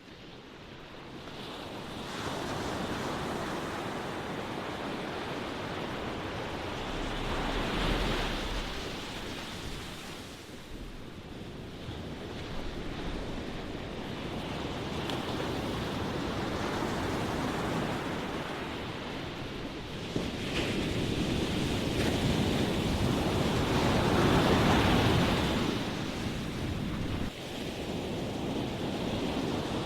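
Ocean waves breaking and washing on the shore, a steady surf rush that swells and eases, with the loudest surges about eight seconds in and again over a few seconds past the twenty-second mark.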